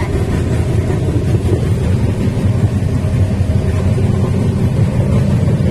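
Humsafar Express passenger train running on the rails: a steady, loud low rumble of wheels and coach, heard at the open coach doorway.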